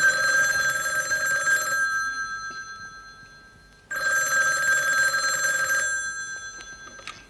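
A landline telephone's bell ringing twice. Each ring lasts about two seconds, and the bell tone fades slowly after each ring.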